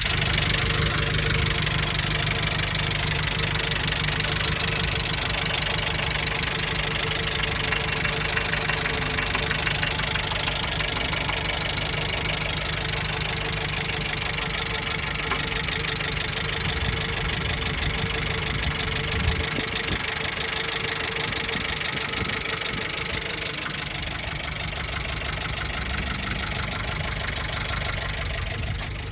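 1998 Jeep Wrangler TJ's 2.5-litre four-cylinder engine running steadily with a knocking noise. The owner says the knock appears only when the engine is warm, above 2000 rpm at part throttle, at the same time as the oil pressure drops.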